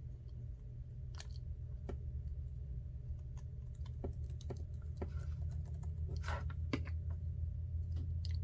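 Scattered small clicks and taps of hand tools on iPhone 8 Plus parts during reassembly, with a short scrape a little past the middle, over a steady low hum.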